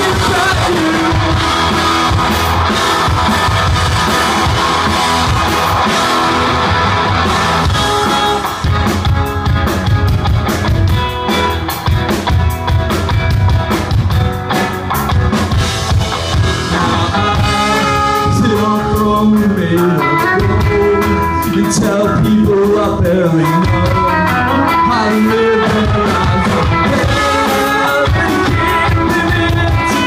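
Indie rock band playing live: electric guitars, bass guitar and a drum kit, loud and steady, with a sung lead vocal over them.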